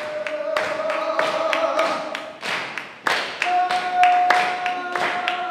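A voice holding long sung notes over sharp, evenly spaced percussive beats, about three a second; about three and a half seconds in the held note moves to a higher, stronger pitch.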